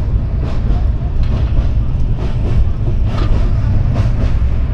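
Maitree Express passenger train running: a steady, loud low rumble with repeated clatter of wheels and carriages.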